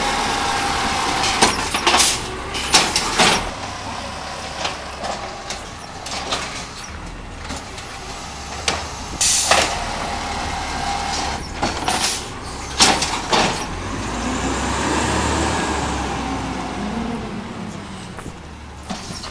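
Natural-gas Peterbilt 320 garbage truck with an automated side-loader arm working a curbside cart: a series of sharp bangs and short hisses of air in the first few seconds and again about ten seconds in, then the engine swells as the truck pulls away and fades off.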